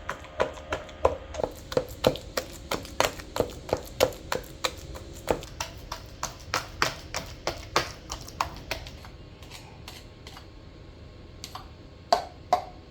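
Rhythmic knocking of a kitchen utensil, about three knocks a second. The knocks thin out about nine seconds in, and two louder knocks come near the end.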